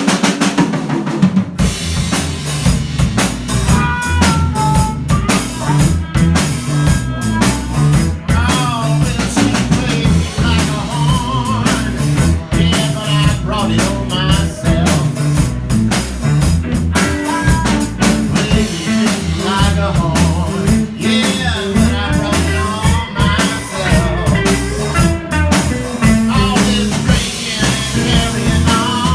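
Live blues band playing an instrumental break: drum kit with rimshots and bass drum keeping a steady beat under bass and a lead line of bent, wavering notes.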